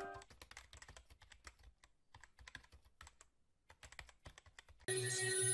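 Quiet, rapid keyboard-typing clicks, a typing sound effect, with a brief pause partway through. Near the end a louder steady humming whine starts abruptly.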